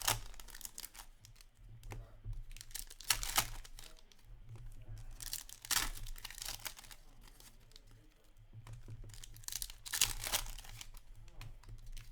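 Hockey card packs being torn open by hand, with their wrappers crinkling, in several short bursts with pauses in between.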